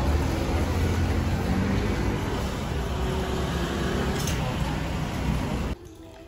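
Steady low rumble of road traffic noise. It cuts off suddenly near the end, leaving a much quieter background.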